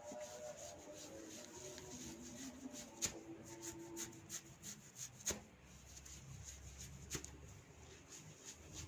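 Hands rubbing and working through hair on the scalp, with many small crackles and three sharp cracks as tufts of hair are tugged during a hair-cracking (jetut rambut) head massage.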